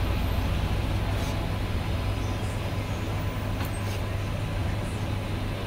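Steady low rumble of busy background noise, like traffic and machinery, with a few faint ticks of a cleaver against the chopping board as the goose is sliced.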